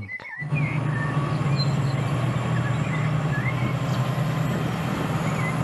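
Steady engine rumble for a toy battle tank, starting abruptly about half a second in and running evenly, with a deep steady hum under a rough noisy layer.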